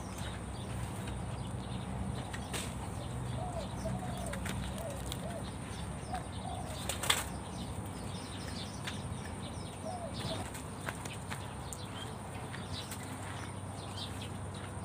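A spotted dove flapping its wings, with a few faint short bird calls and a sharp click about seven seconds in.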